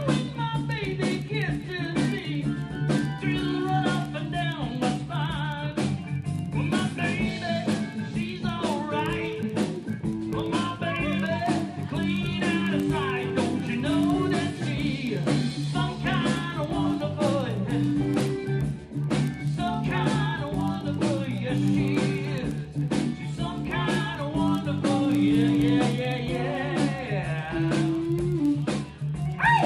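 A live band playing blues-rock, with electric guitar, bass and drums under a sung vocal line.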